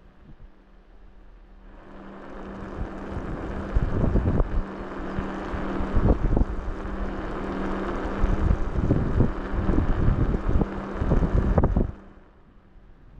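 Wind buffeting a microphone: a rushing noise that builds over the first couple of seconds, with gusty low thumps, and cuts off suddenly near the end. A faint steady hum runs underneath.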